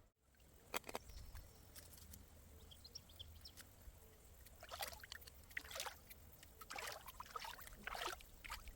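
Water splashing and sloshing in several short bursts, with two sharp clicks about a second in.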